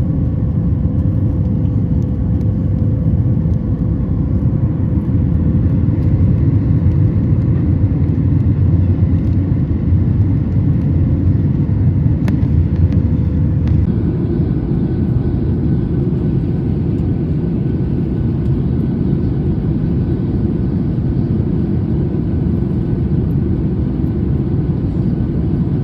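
Steady low cabin drone of a Boeing 737 MAX 9 climbing after takeoff: its CFM LEAP-1B engines and the airflow heard from inside the passenger cabin, with a faint steady hum over it. The sound shifts slightly about 14 seconds in.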